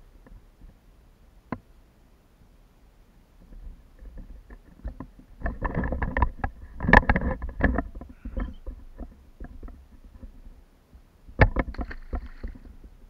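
Knocks and clatter against a plastic kayak as a caught fish is handled and unhooked, loudest about seven seconds in, then a splash near the end as the fish is released into the water.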